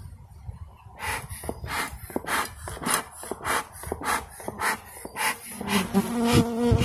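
Bee smoker's bellows being pumped, a steady run of airy puffs a little under two a second, working up smoke. Near the end a honey bee buzzes close by.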